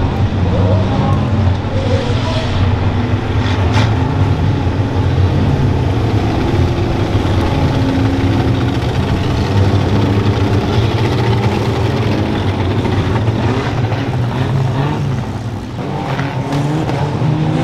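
Banger racing cars' engines running and revving together, several at once with their pitch wandering up and down, and a single sharp bang about four seconds in.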